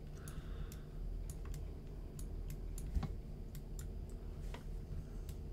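Scattered, irregular light clicks from computer input devices over a faint steady low hum.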